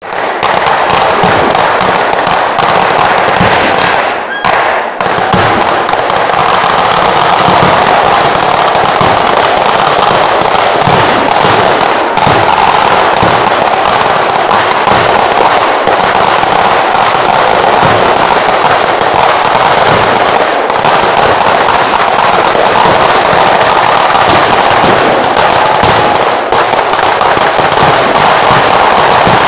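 A dense, continuous barrage of firecracker explosions from a fireworks display, heard very close up and very loud, the cracks overlapping into one unbroken crackle with a brief lull about four seconds in.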